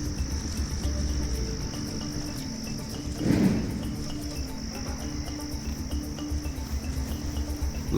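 Crickets trilling steadily at a high pitch, with a brief louder noise about three seconds in.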